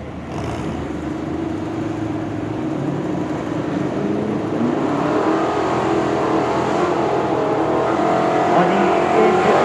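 Pulling vehicle's engine at full throttle hauling a weight-transfer sled, its pitch climbing slowly as it grows steadily louder.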